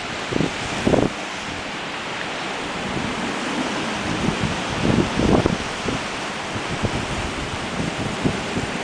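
Strong dust-storm wind blowing as a steady hiss, with gusts buffeting the microphone several times, the strongest about five seconds in.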